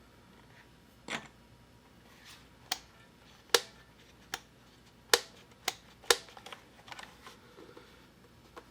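DURGOD Fusion mechanical keyboard with Cherry MX Speed Silver switches, keys pressed one at a time: sharp separate clicks about a second apart, then a quicker run of softer clicks after about six seconds.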